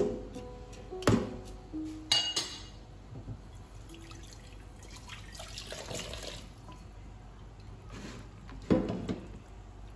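Washing up at a stainless steel sink: a few sharp knocks and clinks of a knife, pot and chicken pieces against the sink and bowl, with tap water running into a pot and splashing midway.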